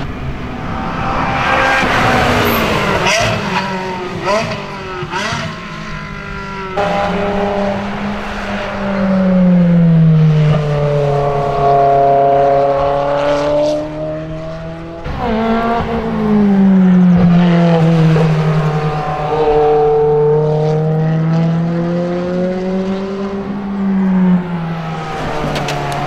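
Sports car engines on a race circuit. Several cars pass quickly in the first few seconds; then two cars in turn come into a tight hairpin, each engine note falling as the car slows and then climbing again as it powers out of the corner.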